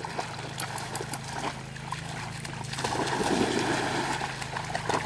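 Dogs swimming and paddling: water splashing and sloshing around them, louder from about three seconds in.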